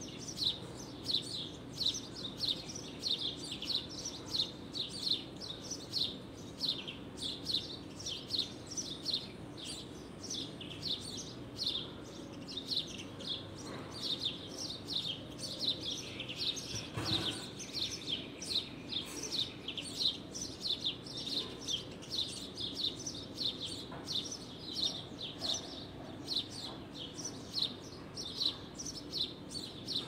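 Birds chirping: a continuous run of short, high, falling chirps, about two or three a second, without a break.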